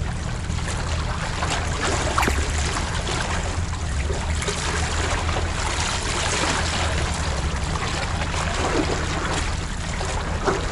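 Seawater sloshing and trickling among the concrete tetrapod blocks of a breakwater: a steady wash of water noise with a low rumble underneath.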